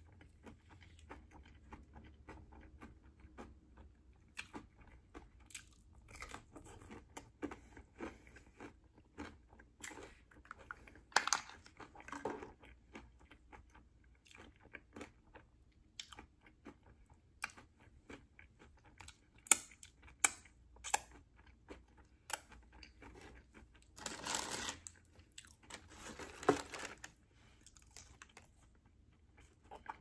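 Close-miked chewing and crunching of fried food, with many short sharp bites and mouth clicks. Two longer, louder noisy stretches come about three-quarters of the way through.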